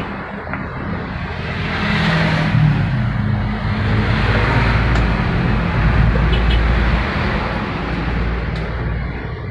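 An engine running steadily, growing louder about two seconds in, holding there for several seconds, then easing off.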